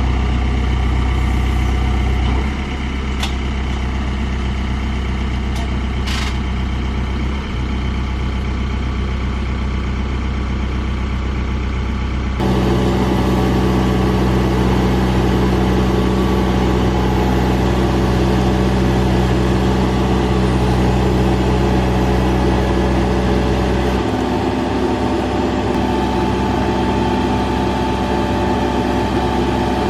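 Diesel engine of a Case 580 Super N backhoe loader running steadily. Its note changes abruptly about twelve seconds in and again about two-thirds of the way through.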